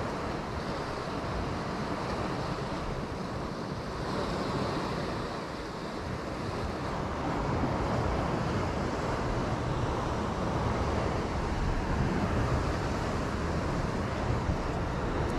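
Sea surf washing in on the shore, a steady rushing with slow swells, with wind buffeting the microphone, the low rumble growing heavier in the second half.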